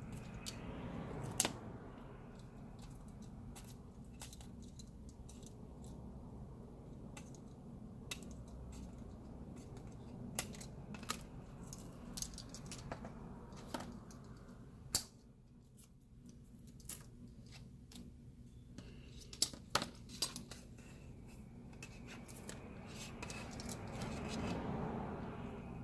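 Small scissors snipping strips of adhesive tape, with scattered light clicks and taps of small parts being handled, over a faint steady low hum.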